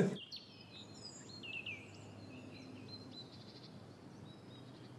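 Faint songbirds chirping, with quick falling notes, busiest in the first few seconds, over a low steady hush.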